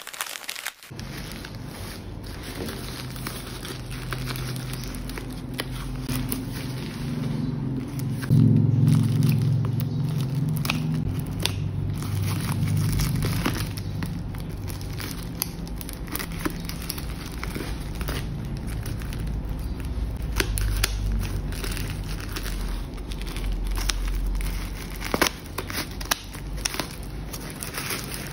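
Scissors snipping through a taped plastic mailer and its bubble wrap, with the plastic crinkling, rustling and crackling as it is handled and torn open.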